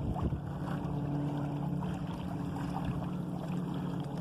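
Steady low drone of a nearby motorboat's engine, over water splashing and rushing along the canoe's hull.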